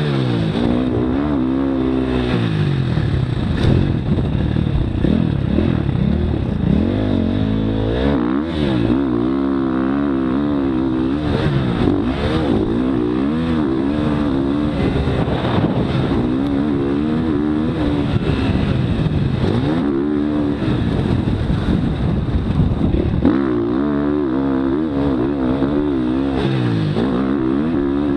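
Motocross dirt bike engine ridden hard, revving up and falling back again and again as the rider accelerates, shifts and rolls off around the track, with wind rushing over the microphone.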